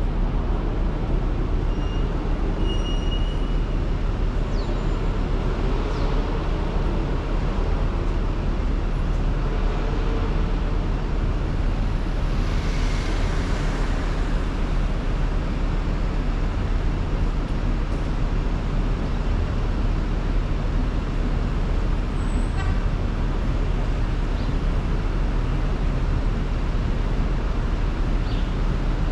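Steady city traffic and road noise heard while driving, low and rumbling. A brief louder swell of hiss comes about halfway through, and a few faint high chirps are scattered through it.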